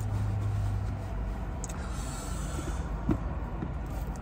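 A car engine running with a steady low hum that stops about a second in, then a steady background hum with a soft thump about three seconds in.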